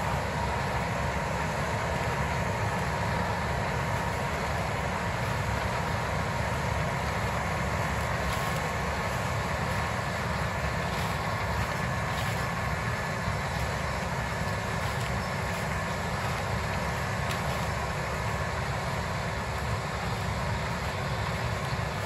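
Combine harvester and tractor-pulled grain cart running side by side while the combine unloads corn on the go, heard as a steady drone of engines and machinery with a faint steady whine.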